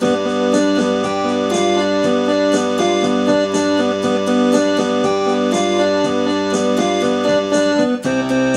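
Electronic keyboard played two-handed with a piano sound: a quick, busy run of notes and chords over held lower notes. The texture changes shortly before the end, when a new low bass note comes in.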